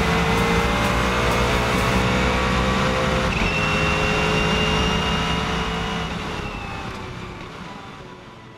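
Stealth B7 race car's V8 engine heard from onboard at full speed, pitch climbing under acceleration, with an upshift about three seconds in. The sound fades out over the last few seconds.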